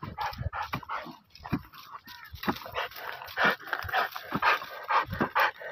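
Dog whimpering and yipping in short, irregular bursts as it noses and digs into a snake's burrow, with the scrape and knock of a digging tool in dry, stony soil.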